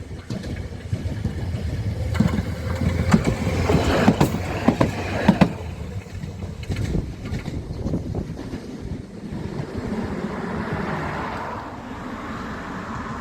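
Vehicle passing close by over a steady low hum, with a run of sharp clacks and knocks from about two to five and a half seconds in, then a softer rush that swells and fades near the end.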